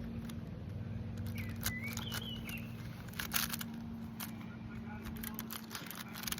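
Rubik's Cube being turned by hand: scattered quick plastic clicks and scrapes as the layers are twisted, over a steady low hum.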